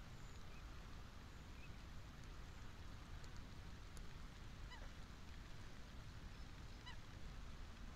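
Steady low rumble of wind and rain, with two short, faint bird calls about five and seven seconds in.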